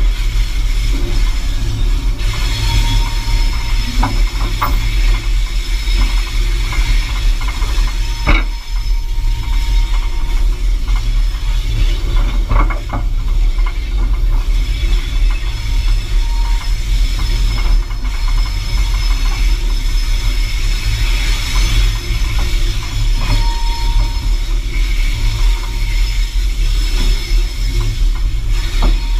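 Diesel-electric locomotive 801 running along the track, heard close from its front end: a steady low rumble with a few sharp clanks in the first half and brief thin squeals.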